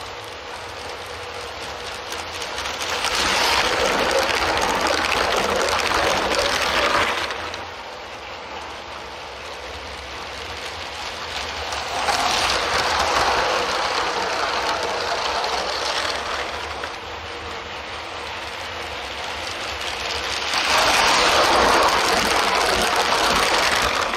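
Motorised LEGO trains running on plastic LEGO track: a steady whirring, rattling run of motor and wheel noise that grows loud three times as trains pass close by, about three, twelve and twenty-one seconds in, and falls back as they move away.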